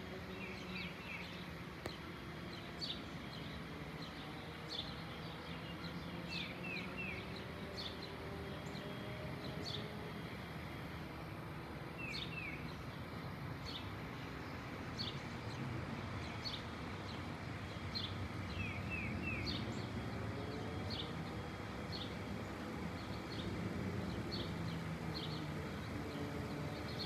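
A Boeing 787-8 airliner's jet engines flying high overhead: a distant low rumble with slowly drifting tones that grows a little louder toward the end. Small birds chirp repeatedly over it, some in quick runs of three falling notes.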